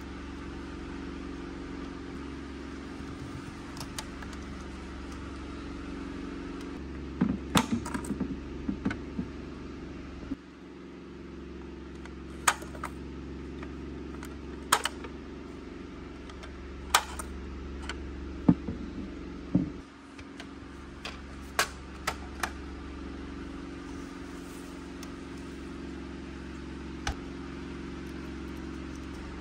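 Small hard-plastic Polly Pocket toy pieces clicking and tapping as they are handled and fitted together: a quick run of clicks, then scattered single clicks. A steady low hum runs underneath.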